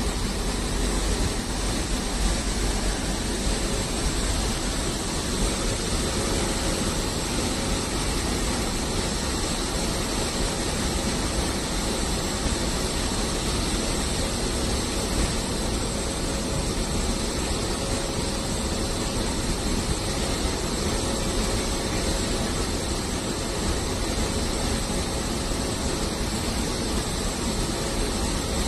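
Passenger coaches of an express train rolling past on the rails, a steady, unbroken rumble of wheels on track.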